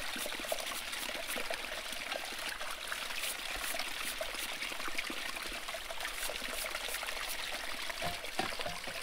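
Water trickling and running at a trout tank's outlet, with a plastic brush scrubbing the outlet's screen in many small scratchy strokes.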